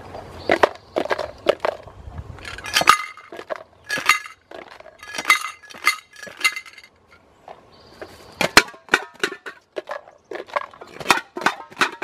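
Homemade shakers rattling: a yogurt container holding small sticks and a tin can with stones inside, covered with plastic, shaken in several bursts of rapid rattles, with softer handling noise in the first few seconds.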